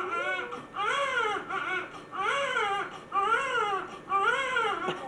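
Premature newborn baby crying: a steady run of short cries, about one a second, each rising and falling in pitch. The parents take the crying for hunger.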